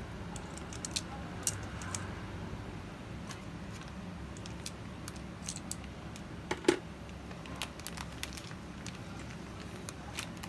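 Scattered faint clicks, crinkles and squishes of marinated chicken thighs being handled and put into a plastic zip-top bag, with one sharper click a little past halfway, over a steady low hum.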